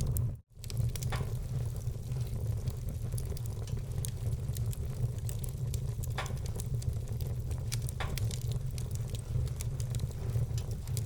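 Wood fire burning in a fireplace: a steady low rumble of flame with dense small crackles and a few louder pops of burning logs. The sound cuts out for a split second near the start.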